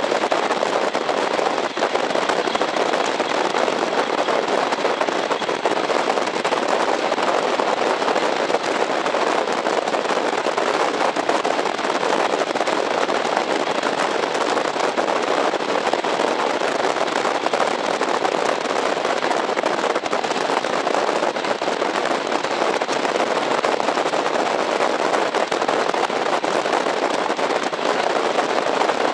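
Running sound inside a JNR KiHa 40 series diesel railcar at speed: a steady, dense rattling rumble of the wheels on the rails under the car, with its diesel engine pulling.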